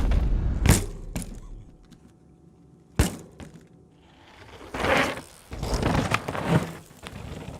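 Downhill mountain bike on a run: clatter and knocks of the bike over rough ground, a quieter stretch, a sharp impact about three seconds in, then rushes of tyre and wind noise.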